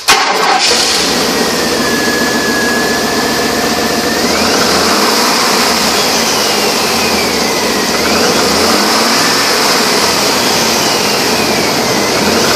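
1997 Chevrolet Silverado 1500 engine running steadily at idle, with a constant hiss and a faint whine that slowly sinks and rises in pitch.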